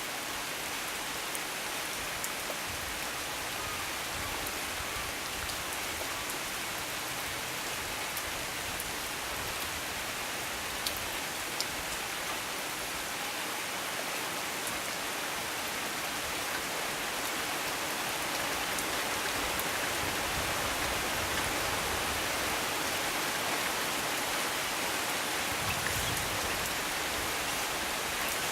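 Steady rain falling, with a few sharp drop ticks; it grows slightly heavier about two-thirds of the way through.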